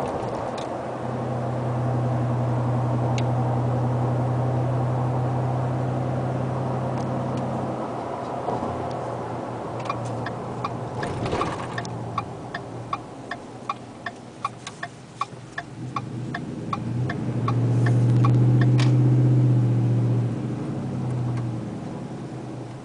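2010 Ford F-150 V8 with Flowmaster 40 Series mufflers, heard inside the cab: a deep, steady exhaust drone under acceleration that eases off after about eight seconds. A turn signal ticks evenly, about one and a half times a second, through the middle. The drone swells again, loudest a few seconds before the end, then fades as the truck lets off.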